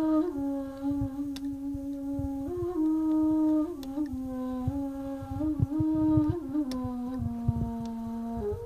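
Ney playing a slow melody of long held notes that step up and down in pitch, with short ornaments between them. Low thuds and a few sharp clicks sound underneath.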